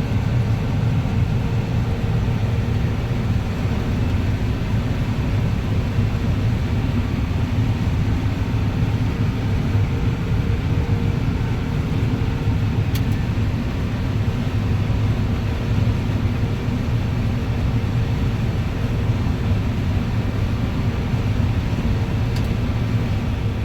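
Combine harvester running steadily, a low, even engine drone with a constant machine hum.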